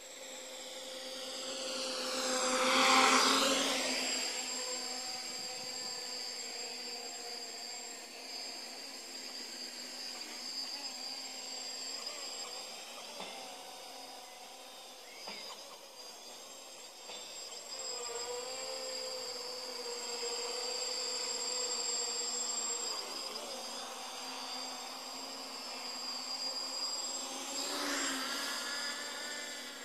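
Cheerson CX-20 quadcopter's motors and propellers buzzing in flight, with a steady high whine. It is loudest about three seconds in, where its pitch sweeps down as it passes close, and it swells again near the end.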